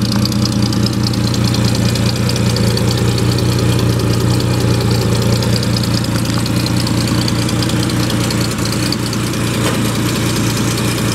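1929 Graham-Paige Model 615's inline six-cylinder engine idling steadily.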